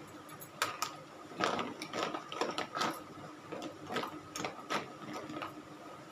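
Small plastic makeup cases and items clicking and rattling as they are rummaged through and handled: irregular quick clicks in clusters that start about half a second in and die away near the end.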